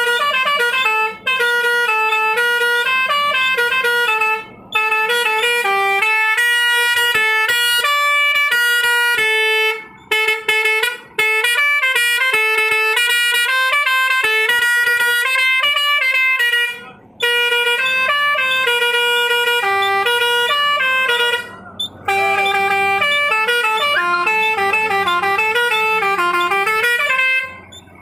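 Truck's multi-tune musical horn playing a string of short melodies, one note stepping to the next, with brief breaks where one tune stops and another starts.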